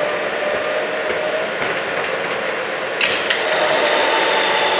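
R160 subway train moving along the station platform, a steady running noise with two sharp clacks about three seconds in.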